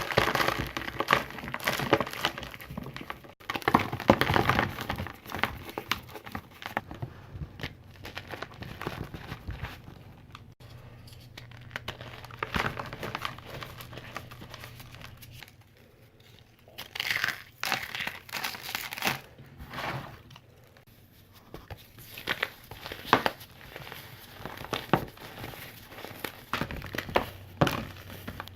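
Blocks of compacted crunchy powder crushed and crumbled by hand: dense crackling crunches in bursts, with quieter pauses and a few abrupt breaks between clips.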